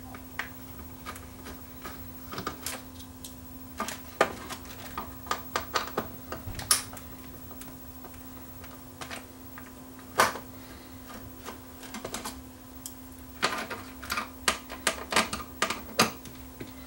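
Irregular clicks and taps of a screwdriver and fingers on the plastic and metal parts of an opened CD changer, coming in short clusters with one sharper knock about ten seconds in, over a faint steady hum.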